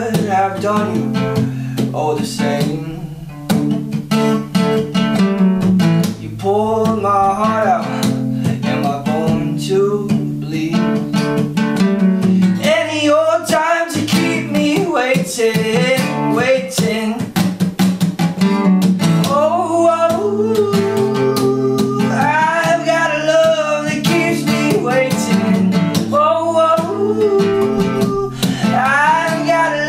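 Steel-string acoustic guitar strummed in a steady rhythm while a man sings over it.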